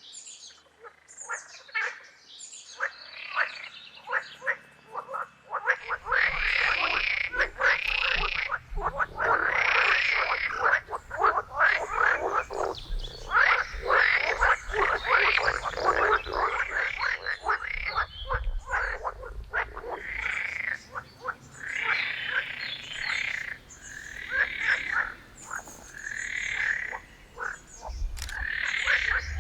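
Chorus of frogs calling, many overlapping rapid pulsed croaks. The calls are sparse at first, then about six seconds in it becomes a dense, loud chorus.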